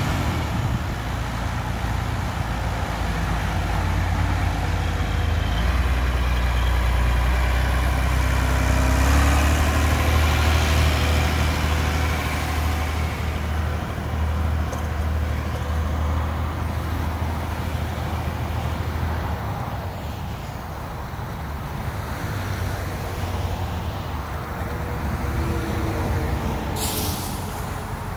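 Large farm tractor's diesel engine running as it drives off across gravel, rising in pitch and loudness as it speeds up about nine seconds in, then settling into a steadier run. A brief sharp hiss sounds near the end.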